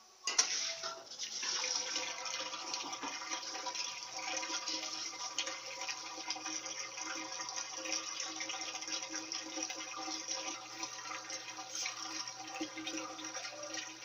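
Consul Maré 7.5 kg top-loading washing machine draining before its spin: water running out with a steady hum, starting just after a brief silence at the beginning.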